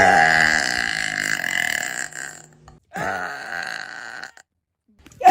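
A young woman belching: one long drawn-out burp, strongest at its onset, lasting about two and a half seconds, then a shorter burp about three seconds in, and another burp beginning right at the end after a short silence.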